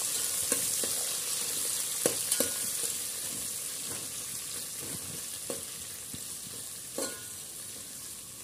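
Sliced onions and green chillies sizzling in hot oil in an aluminium pot. A steel ladle stirring them clinks and scrapes against the pot now and then. The sizzle slowly dies down.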